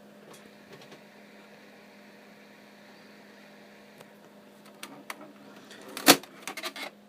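Steady low hum, then a few light clicks and one sharp knock about six seconds in, followed by a short run of clicks as the Epson Stylus R800 printer's plastic parts are handled.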